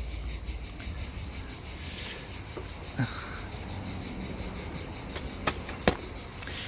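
Insects chirring steadily in a high, even band, with a few short faint clicks.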